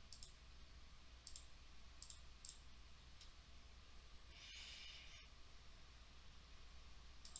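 Near silence with a few faint computer mouse clicks, and a brief soft hiss about four and a half seconds in.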